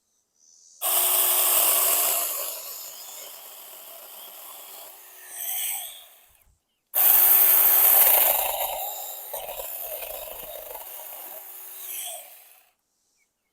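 Saker Mini electric chainsaw cutting through wood in two runs of about six seconds each, with a short pause between them. Each run is loudest as it starts and swells briefly just before it stops.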